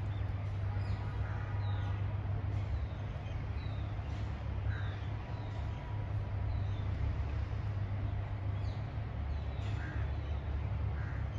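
Outdoor birdsong over a steady low rumble: crows cawing a few times and small birds giving short falling chirps now and then.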